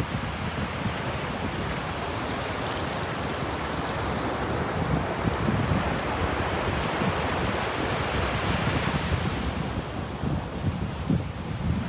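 Ocean surf on a beach, a continuous rushing wash of waves with a low rumble, swelling into a brighter hiss about eight seconds in as a wave breaks.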